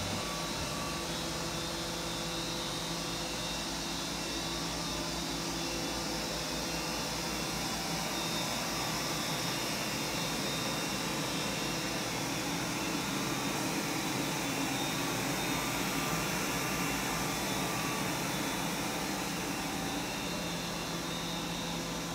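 Doosan Mynx 5400 vertical machining center powered up and idling, spindle not turning: a steady mechanical hum with a few faint constant tones running through it.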